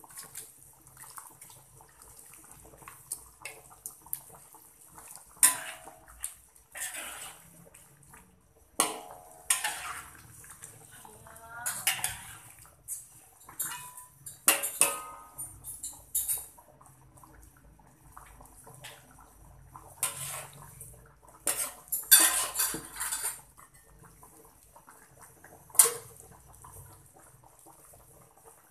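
Metal spatula scraping and clinking against the side and bottom of a metal cooking pot while stirring a fish-head curry. The sound comes as irregular scrapes and sharp knocks, with the loudest strikes about a fifth of the way in and again near the end.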